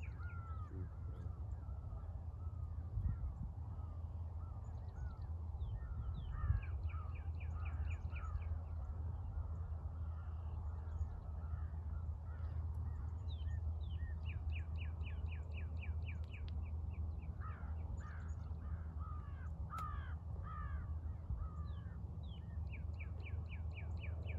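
Crows calling: scattered harsh caws and, three times, a fast run of about ten evenly spaced calls, over a steady low rumble.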